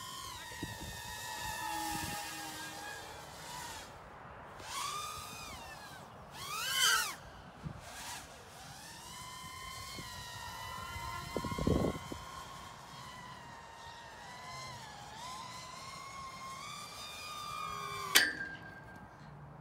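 Brushless motors of a 4-inch FPV quadcopter whining, the pitch rising and falling with throttle, with a fast flyby about seven seconds in. Near the end there is a sharp hit as the drone strikes a football goal post at full speed, and the motor whine cuts off.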